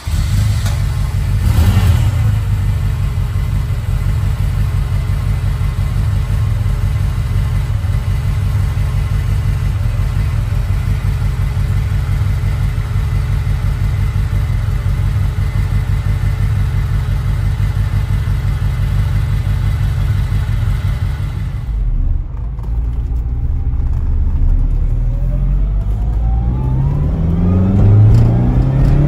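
1978 Ferrari 308 GTS's carbureted 2.9-litre V8, just after a cold start, idling steadily at its rear exhausts after a brief rev about two seconds in. Near the end, heard from inside the cabin, the engine pulls away with its pitch rising as the car accelerates.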